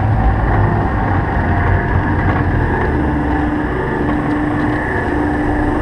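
Steady rumble of Wiegand bobkart coaster cars rolling along the track, heaviest about the first second and easing slightly, with a faint steady hum underneath.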